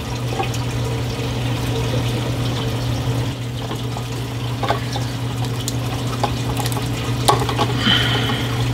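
Reef aquarium sump running: a steady wash of circulating water over a constant low pump hum. A few small plastic clicks and knocks come from a reagent bottle and cap being handled, most of them in the second half.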